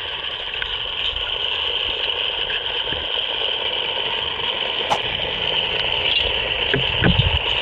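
Underwater ambience in a swimming pool heard through a submerged camera: a steady hiss of water. A sharp click comes about five seconds in, and a few low thumps follow around seven seconds.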